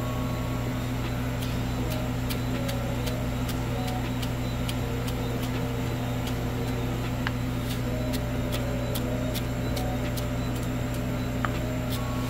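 Chef's knife chopping fresh parsley on a wooden cutting board, a run of light taps about two or three a second, over a loud steady low hum.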